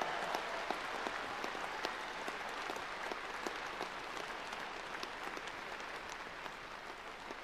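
Arena audience applauding after a figure skating program, a dense patter of clapping that swells at the start and slowly fades.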